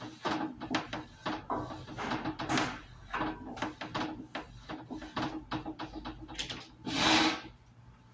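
Quick, irregular rubbing and scraping strokes of hands working over a plastic sign panel on a workbench, with one louder, longer scrape about seven seconds in.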